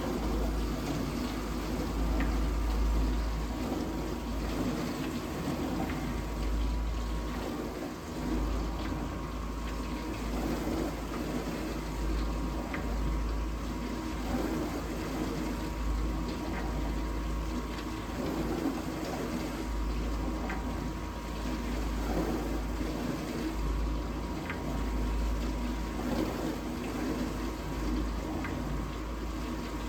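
Vintage dishwasher mid-cycle, its wash pump running steadily with water churning and spraying inside the tub over a low rumble. The owner suspects the pump is restricted, since the water no longer seems to hit the tub at full force.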